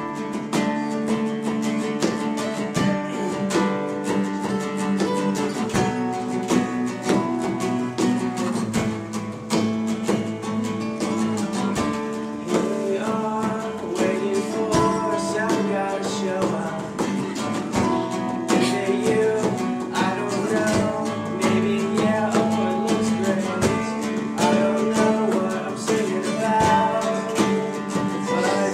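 Acoustic guitar strummed steadily in a continuous rhythmic pattern.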